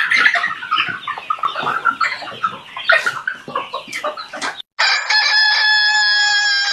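A flock of chickens clucking and calling over one another, cut off suddenly about four and a half seconds in. After a short gap comes a steady held sound of several high tones that lasts to the end.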